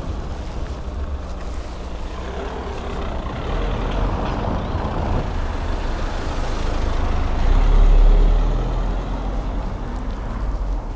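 A motor vehicle passing: its engine and tyre rumble grows over several seconds, is loudest about eight seconds in, then fades.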